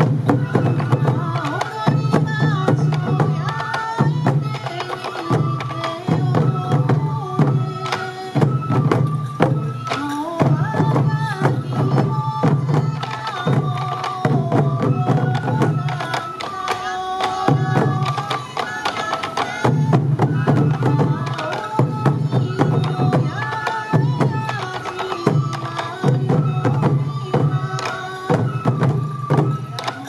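Traditional sansa odori festival music: Japanese transverse bamboo flutes play a melody over the steady beat of sansa taiko drums carried by the dancers.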